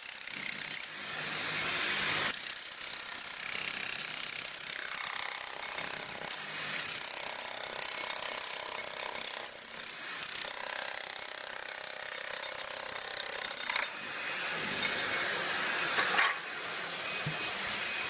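Electric demolition hammer with a chisel bit and a vacuum-hooded dust shroud, running steadily as it chips floor tile off the concrete slab. Its note shifts a few times and breaks off briefly about ten seconds in.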